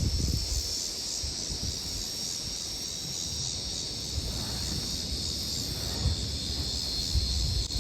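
A steady, high insect chorus with a faint pulse, over a low rumble.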